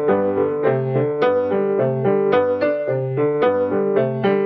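Grand piano played with both hands: a steady, even pattern of repeated notes and chords, several strokes a second.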